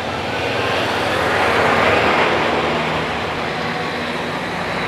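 A motor vehicle passing close by on a paved road, its engine and tyre noise swelling to a peak about two seconds in and then easing off.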